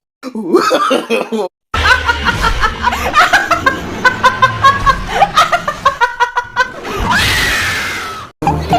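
Laughter in quick, short bursts, broken by abrupt edit cuts, with a rising sound near the end.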